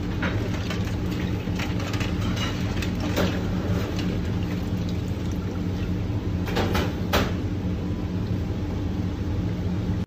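Cooked lobster tails being handled in a steel pan of ice water, giving scattered clicks and cracks of ice and shell as the meat is pulled from the shell, over a steady kitchen hum. The sharpest cracks come about two-thirds of the way in.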